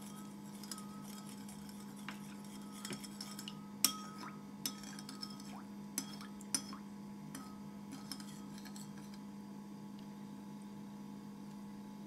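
Metal teaspoon stirring salted water in a ceramic bowl: scattered light clinks of the spoon against the bowl that stop after about eight seconds. A steady low hum runs underneath.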